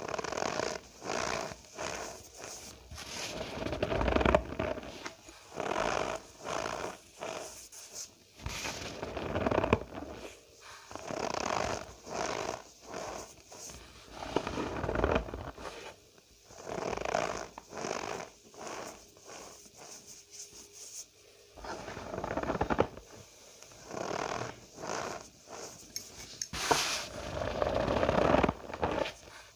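Cornstarch powder being squeezed and pressed by hand, giving squeaky, crunching squeaks in irregular bursts of about a second each with short pauses between.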